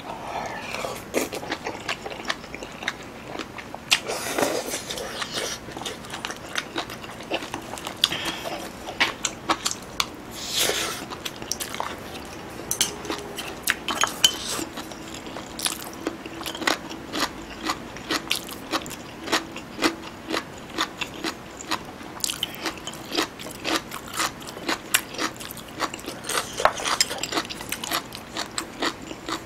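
A person eating into a close microphone: slurping strands of squid stew off a spoon, then chewing with many short, wet mouth clicks and smacks, and chopsticks clicking against the dishes.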